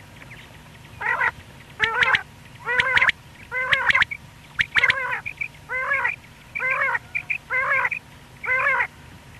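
Common quail calling: a series of about nine short, wavering calls, roughly one a second, starting about a second in.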